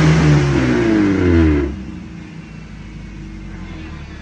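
Off-road vehicle's engine revving hard, its pitch sagging, then backing off abruptly a little under two seconds in to a quieter, steady low running note.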